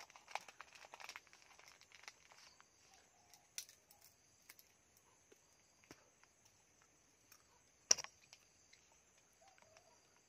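Quiet rural ambience: a faint steady high-pitched insect drone, with scattered rustles and small clicks, busiest in the first couple of seconds, and one sharp click about eight seconds in.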